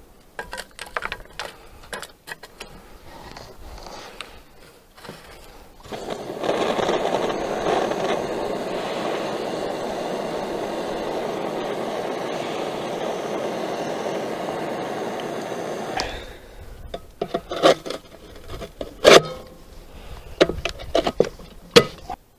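Dry wood chips and tinder rustling and scraping as they are packed into a beekeeper's smoker. About six seconds in, a gas-cartridge blowtorch flame starts with a steady hiss for about ten seconds to light the fuel, then cuts off suddenly. Sharp knocks and metal clatter follow as the smoker is handled and closed.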